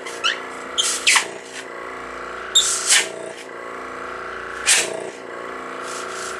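Small twin-cylinder oilless piston air compressor running with a steady hum, with several brief sharp noises over it. It has just been rebuilt, and it runs with no squeaks or air leaks heard while it builds pressure.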